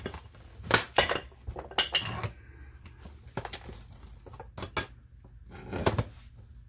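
Metal clanking and knocking from a pried-open fireproof safe being handled, in irregular sharp knocks with a few louder ones.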